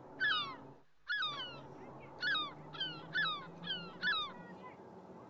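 A crow cawing, about seven short calls that each fall in pitch, over a low steady hum.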